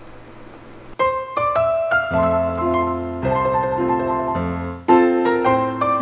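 Background piano music, a gentle melody with low bass notes beneath, starting about a second in after a brief quiet gap.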